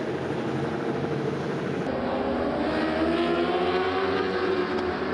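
Racing superbike engines at high revs as a group of endurance bikes passes. About two seconds in the sound switches abruptly to a closer pair of bikes, their engine notes rising in pitch as they accelerate.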